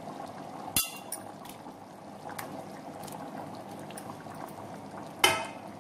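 Tamarind gravy bubbling at a steady boil in an aluminium pot as sautéed brinjal pieces are slid in from a plate. There is a sharp clink about a second in and another louder clank near the end.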